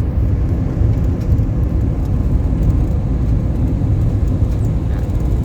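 Steady low rumble of a car on the move, engine and road noise with no distinct events.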